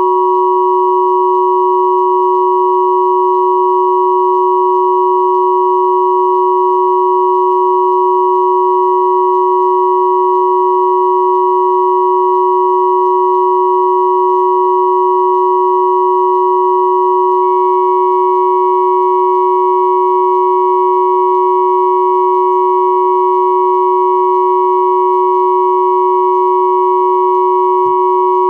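Steady pure sine tones at 369, 963 and 1111 Hz sounding together as one unchanging chord-like hum. A faint higher tone joins about two-thirds of the way in.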